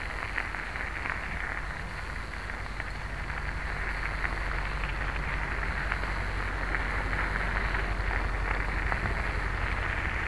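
Bicycle tyres rolling over a fine gravel towpath: a steady crackling hiss with a low rumble.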